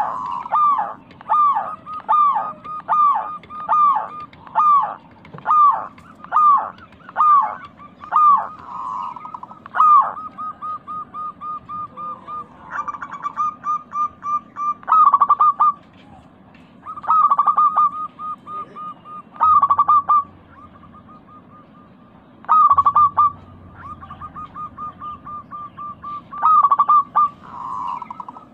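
Zebra dove (perkutut) calling in full song: short hooked cooing notes repeated about twice a second. About ten seconds in, the calls change to fast strings of short notes broken by louder clusters of coos.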